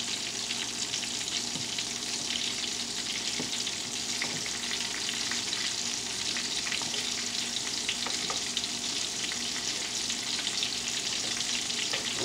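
Porgy fish and zucchini slices shallow-frying in hot oil in a skillet: a steady sizzle, with a few faint taps of a fork against the pan as the pieces are turned.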